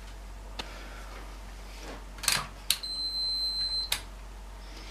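A few clicks as a digital multimeter's rotary dial is turned, then one steady high-pitched beep from the meter lasting about a second, ending with another click.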